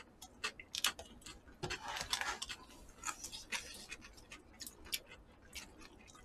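Quiet, irregular light clicks and taps of chopsticks and a spoon against plastic takeout bowls as people eat, with a brief louder noisy sound about two seconds in.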